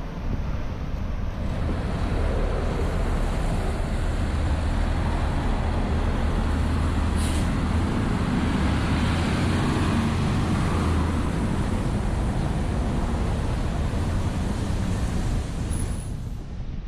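Road traffic passing along a town street, a steady rumble of vehicles with a brief hiss about seven seconds in.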